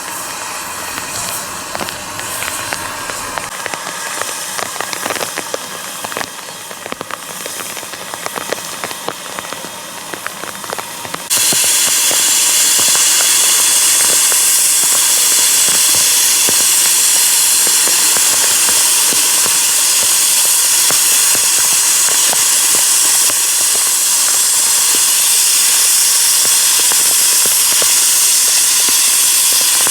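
A crackling, clicking noise, then about eleven seconds in a steam locomotive starts hissing out steam suddenly and loudly, a steady hiss that carries on.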